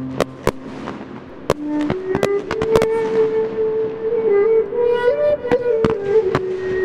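Fireworks shells bursting in sharp, irregular bangs, about one or two a second, over a music soundtrack. A slow melody of held notes comes in about two seconds in.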